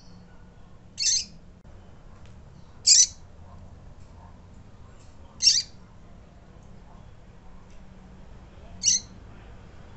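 Female double-collared seedeater (coleiro) calling: four short, high-pitched peeps, irregularly spaced a couple of seconds apart.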